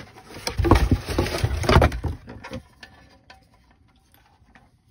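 Handling noise: rustling and knocking as the converter and its wires are moved about in a cardboard box with foam packing, busiest in the first two and a half seconds, then only a few faint clicks.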